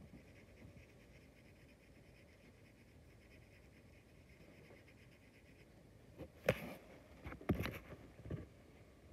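Faint scratching of a pencil on paper with small strokes, as a sketch's eye is shaded in. Near the end come two louder knocks about a second apart, then a smaller one.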